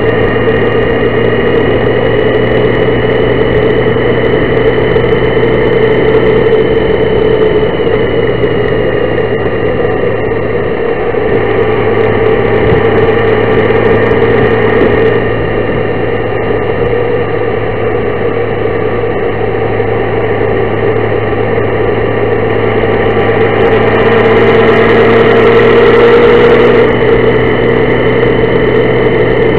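Honda Gold Wing motorcycle engine running at a steady cruise, with road and wind noise, getting louder for a few seconds near the end.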